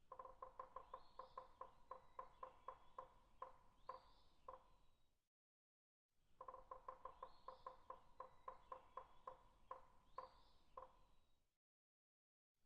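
Woodpecker pecking on a tree: a faint run of sharp, hollow knocks at about four a second, with a couple of high bird chirps mixed in. The same passage plays twice, with a second of dead silence between.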